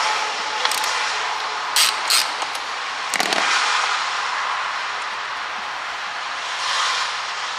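Hand socket ratchet working on a bolt, with a few sharp metal clicks and knocks; two close together about two seconds in are the loudest.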